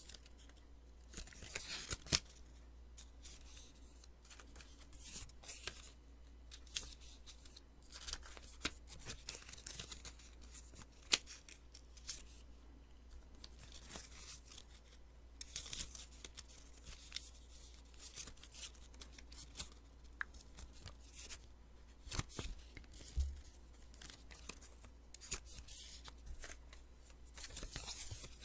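Sticky notes being peeled off and handled close to the microphone: irregular bursts of tearing, crackling paper with occasional sharp snaps.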